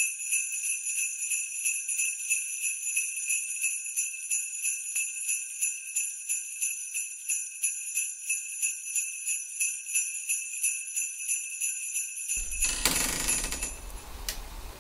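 Jingle bells shaken in a steady rhythm, about three shakes a second, stopping about twelve seconds in. A short rush of noise follows, then quiet room sound.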